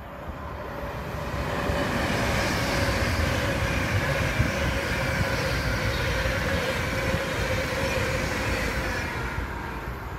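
A Virgin Trains express passenger train passing through a station at speed: the rush of wheels on rail with a whine over it, swelling about a second in, loudest through the middle, and fading near the end as the train goes by.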